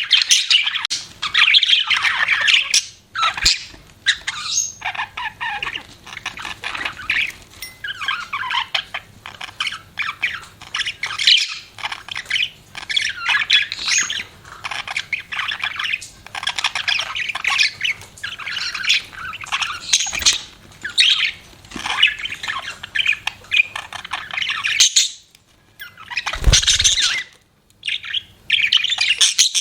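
Budgerigars chirping and squawking in a dense, busy stream of short high calls, with a few brief pauses and one low thump near the end.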